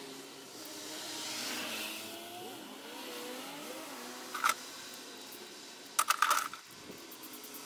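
Metal hand tools and bolts clinking while a thermostat housing is bolted back onto a diesel engine: one sharp ringing clink about halfway through, then a quick cluster of clinks about six seconds in, over a faint low background hum.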